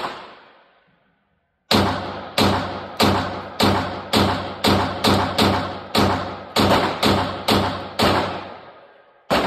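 Compact 9mm pistol fired in an indoor range, each shot ringing off the walls. One shot at the start, then after a pause of over a second a steady string of about thirteen shots roughly half a second apart, and one more near the end.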